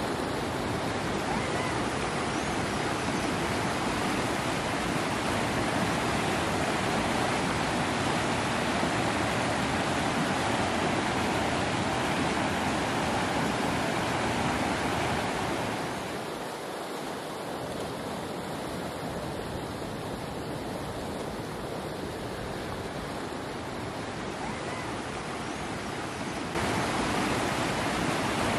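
Shallow, rocky river rushing and splashing steadily. The rush gets somewhat quieter just past the middle and comes back abruptly louder near the end.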